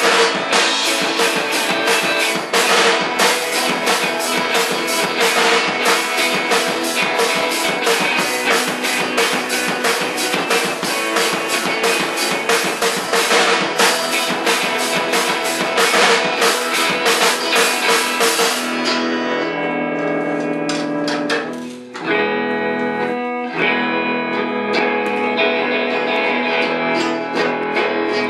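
Live band playing: guitars over a drum kit with heavy cymbals. About two-thirds of the way through the cymbals and full band sound fall away, leaving sparser held guitar notes, with a brief drop in level shortly after.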